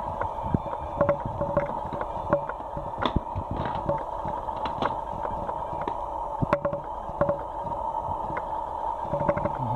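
Hands handling a cardboard phone box and its inner packaging: scattered light knocks, taps and clicks over a steady background hum.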